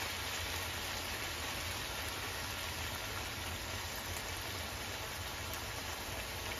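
Beef and chopped tomatoes sizzling in a frying pan, a steady, even hiss, with fish sauce just poured into the pan.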